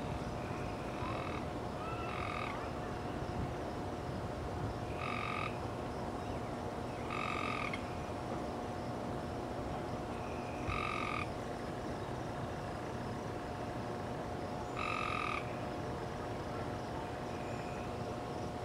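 A frog calling: short calls of about half a second each, repeated at uneven gaps of two to four seconds, over a faint steady hum.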